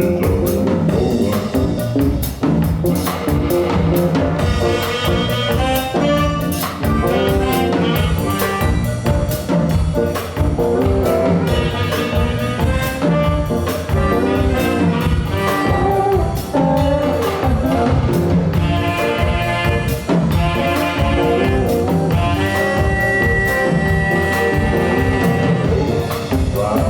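Live band playing: brass horns carrying the melody over a drum kit keeping a steady beat.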